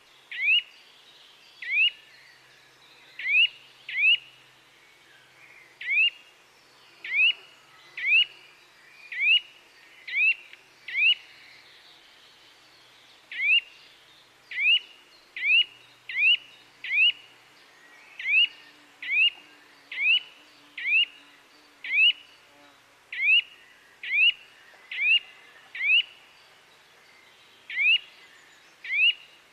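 A bird repeating a short, sharp upward-sweeping chirp over and over, roughly once a second, with a couple of brief pauses.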